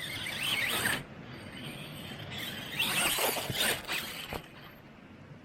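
Small electric motor and gear drivetrain of a radio-controlled rock crawler whining as it revs up and down in two surges, with scattered knocks as the truck works over the rocks.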